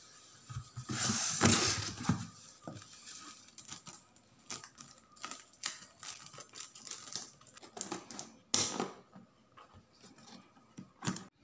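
Packaging being handled: cardboard box flaps rustling open, then a plastic bag crinkling and being cut with scissors, with scattered light clicks and taps.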